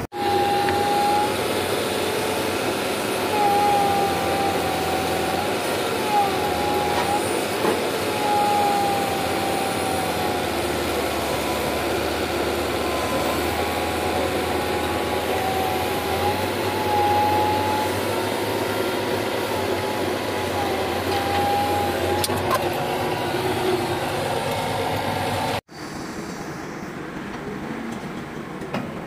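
Volvo BM 861 articulated dump truck running, a loud heavy mechanical din with repeated high squeals that wobble in pitch. Near the end it cuts abruptly to a quieter, steady rumble.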